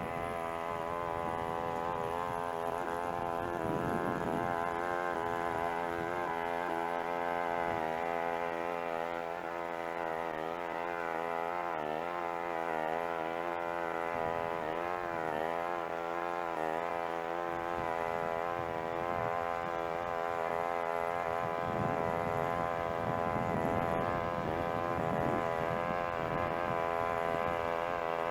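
Small petrol lawn mower engine running steadily, its pitch wavering and dipping briefly a couple of times.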